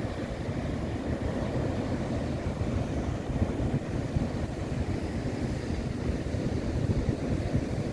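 Ocean surf breaking and washing in among shoreline boulders, a steady low rumble.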